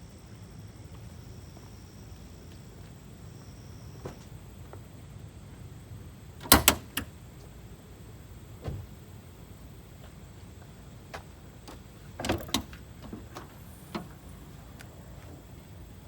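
Several sharp knocks and clanks over a low steady hum, the loudest a double knock about six and a half seconds in and another cluster of knocks about twelve seconds in.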